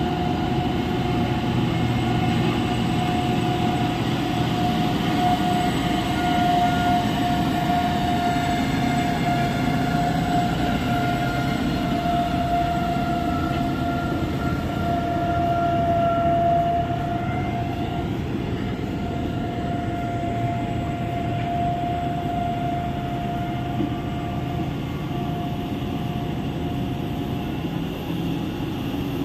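Heavy mining dump truck diesel engines and drivetrains running: a low rumble under a steady high whine that wavers slightly in pitch and stops near the end.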